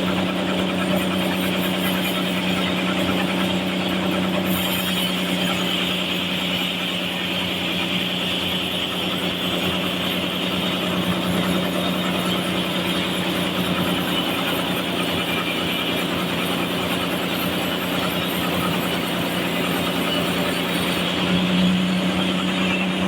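Sawmill saw cutting lengthwise through a large trembesi (rain tree) log: a steady machine hum under a constant hiss of the blade in the wood. The hum grows louder near the end.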